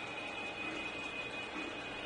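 O gauge model train running on three-rail track: a steady hum of motor and wheels on the rails, with a thin steady high whine over it.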